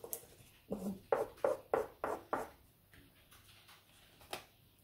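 Oil pastel scraping across grainy sugar paper in a quick run of about six short strokes, then a single sharp click near the end as the pastel goes back into its box.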